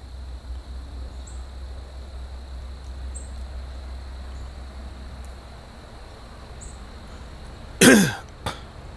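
Quiet outdoor background with faint short high chirps every second or two and a low rumble that fades about five seconds in, then near the end one short, harsh, falling cough from a man, followed by a click.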